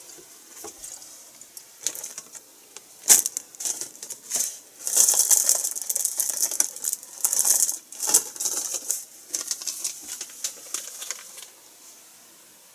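Kitchen handling sounds: scattered clicks and taps, with bursts of hissy rustling in the middle, dying away shortly before the end.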